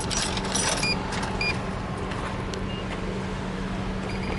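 Drink vending machine working through a purchase: clicks and two short electronic beeps in the first second and a half, then a steady low mechanical hum that stops near the end as the drink is dispensed.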